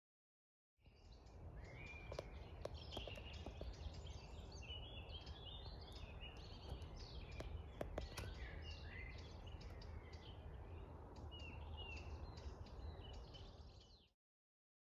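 Wild songbirds singing, many short chirping notes, over a steady low rumble, with a few faint clicks. The sound starts about a second in and cuts off shortly before the end.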